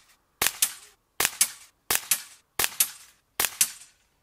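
Break-barrel air rifle, a Gamo Delta Fox GT Whisper, firing five shots in quick succession, each a pair of sharp cracks, sped up so they come about every three-quarters of a second.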